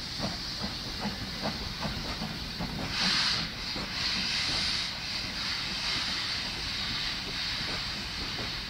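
Steam hissing from BR Standard Class 4 tank locomotive 80105 as it pulls its train away, over the rumble of the coaches rolling past; the hiss swells for a couple of seconds about three seconds in. Regular short knocks sound in the first few seconds.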